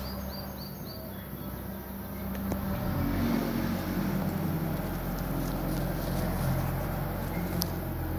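A motor vehicle's engine running steadily, a low hum that grows louder about three seconds in and stays up. A few faint high chirps at the start.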